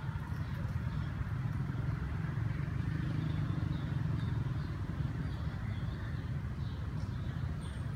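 A steady low rumble of outdoor background noise, with faint high chirps scattered through it.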